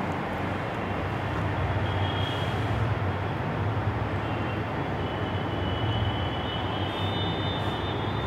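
Steady background noise without speech: an even hiss with a low hum underneath.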